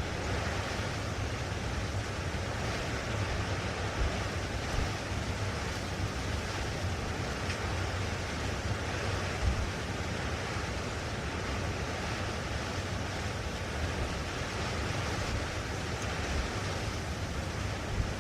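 Blustery wind: a steady rushing hiss with low buffeting on the microphone, and a few brief stronger low gusts.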